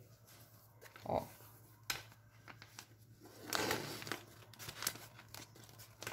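Clear PVC plastic bag crinkling and rustling as it is handled and its drawstring cord pulled closed, in short faint bursts, the longest a little past the middle.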